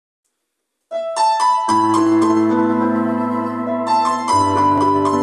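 Piano sound played on a digital keyboard workstation: after about a second of silence, a few single notes are struck, then sustained chords with low bass notes come in, moving to a new chord near the end.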